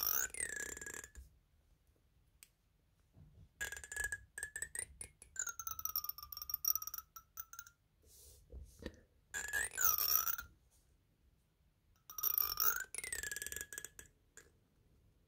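A finger strummed along the teeth of a plastic hair comb. Each stroke is a fast run of clicks that blends into a buzzing tone, its pitch bending up and down as the finger speeds up and slows. There are about five strokes, each a second or two long, with short pauses between.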